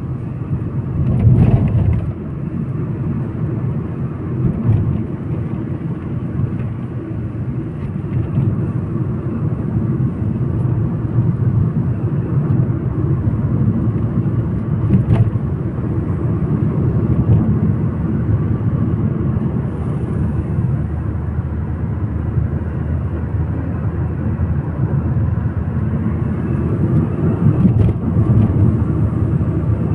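Steady low rumble of a car driving along the road, engine and tyre noise, with a few faint clicks.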